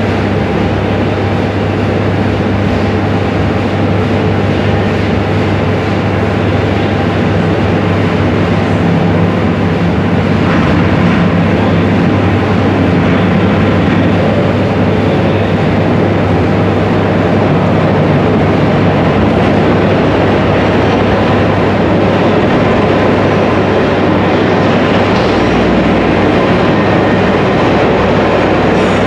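Pair of London Underground battery locomotives approaching through the Central Line tube tunnel: a loud, steady rumble of wheels on rail, echoing in the tunnel and growing heavier in the low end near the end as they draw closer.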